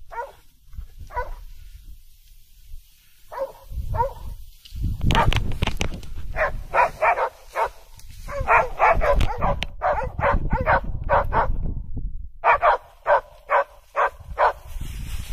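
Hunting dog barking: a few scattered barks, then from about five seconds in runs of quick barks, about three or four a second, with short pauses between the runs. A low rumble lies underneath.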